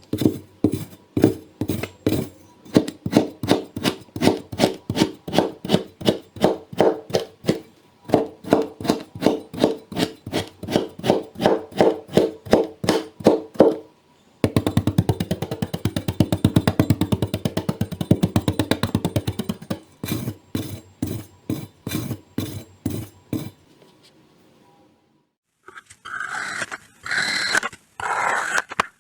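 Crunchy kinetic sand being cut, with steady rhythmic slices about three a second. About halfway through, a fast continuous run of crunching follows, then a brief pause. Near the end comes a different, higher-pitched crunch.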